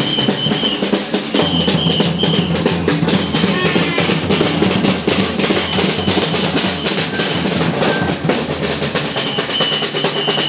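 Marching street drums played in a fast, steady, dense beat, with short high tones heard now and then over the drumming.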